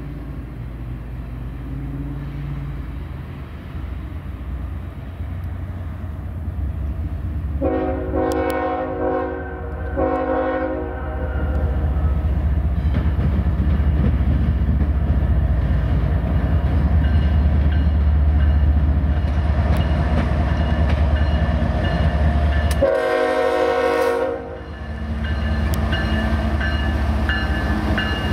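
Diesel locomotive of a CSX freight train approaching and passing, its engine rumble growing louder. Its horn sounds a chord, a long blast and a short one about 8 seconds in, then another blast about 23 seconds in.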